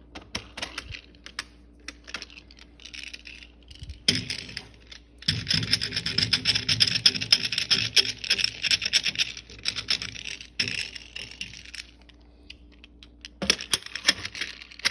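Metal sockets and tools clicking and clinking in a toolbox drawer, with a dense spell of rattling from about five to ten seconds in and scattered clicks around it.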